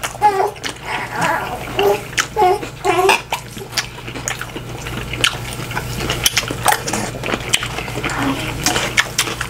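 Close-miked eating: wet chewing and lip-smacking with many sharp, crunchy clicks. A few short voice sounds come in the first three seconds.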